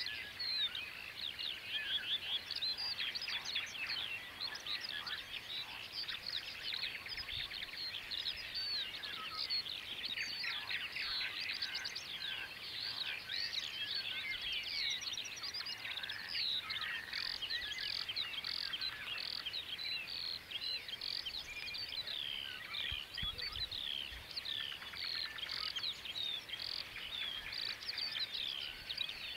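Dawn chorus of many songbirds singing at once: a dense, unbroken tangle of overlapping high chirps, trills and whistles with no pause.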